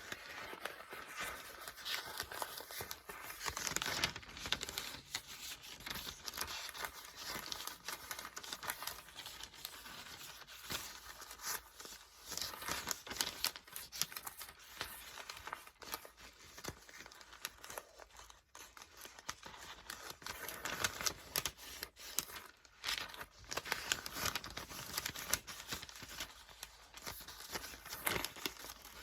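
Paper book pages being turned and flipped: continuous papery rustling and crinkling with many quick, sharp flicks.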